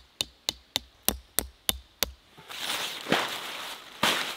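A tent peg being hammered into gravelly ground: a run of about eight sharp strikes, roughly three a second. This is followed by a longer rustle, the tarp's fabric dragged over dry fallen leaves, with one more knock in it.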